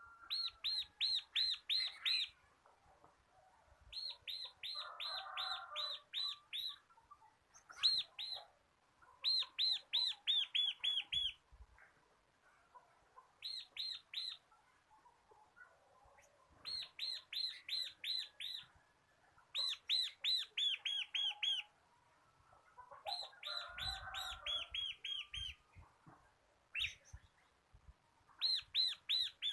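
Bar-winged prinia (ciblek) singing: repeated bursts of six to eight sharp, ringing notes at about four a second, with softer, lower chattering between some bursts.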